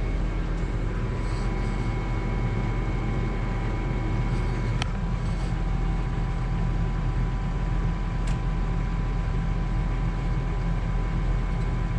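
Tractor engine running steadily, heard from inside the cab, with a constant low rumble and a thin steady whine; two sharp clicks sound about five and eight seconds in.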